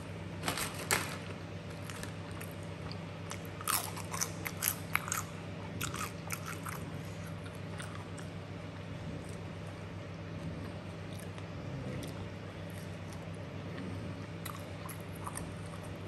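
Close-miked eating of chicken satay: wet chewing and smacking mouth clicks, busiest in the first six seconds, then quieter chewing.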